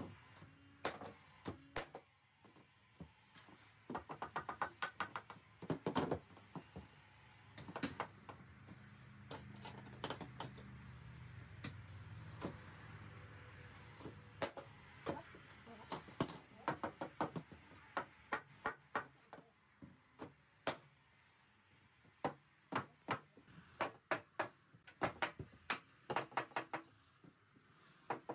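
Hammer blows on timber wall framing, nails being driven in quick runs of several strikes with short pauses between runs. A low steady hum sits under the knocking for a few seconds in the middle.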